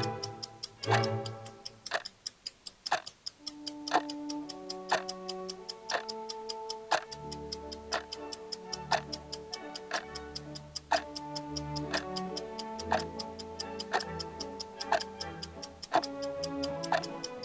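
Clock-tick sound effect ticking steadily about once a second, with fainter ticks in between, over background music of held notes. Louder music fades out in the first second or two, and new quieter music comes in a few seconds later.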